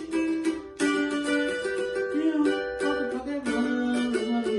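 Cavaquinho strumming chords in a pagode rhythm, an instrumental passage with no singing.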